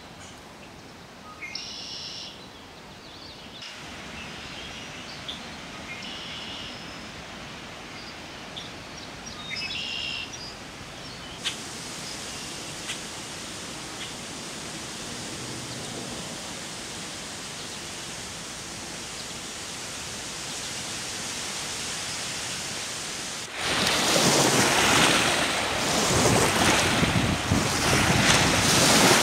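A few short bird calls over a light outdoor hush. About twenty-four seconds in, gusty wind on the microphone and waves washing on open water take over and are the loudest sound.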